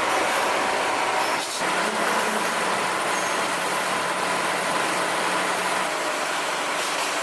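Steady mechanical noise of heavy industrial machinery, with a faint hum. It dips briefly about a second and a half in.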